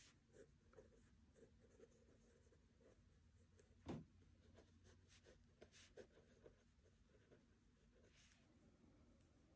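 Faint scratching of a pen writing on paper in a spiral notebook, in short strokes, with one soft thump about four seconds in.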